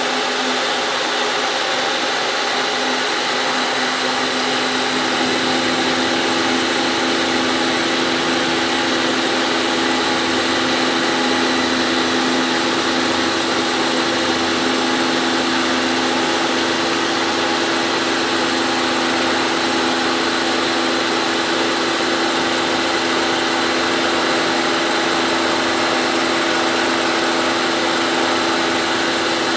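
Milling machine running steadily, its end mill cutting aluminum as a radius is swept with a Volstro rotary milling head. A steady hum steps up slightly in pitch about five seconds in.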